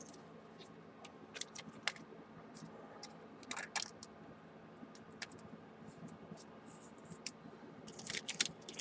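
Trading cards and their packaging being handled: scattered light clicks and rustles, with a louder flurry near the end.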